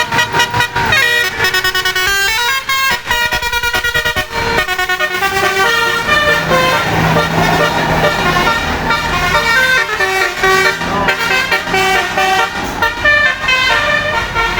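Bus telolet horns (Basuri multi-tone musical air horns) playing quick stepped tunes of several tones at once, over a running bus engine.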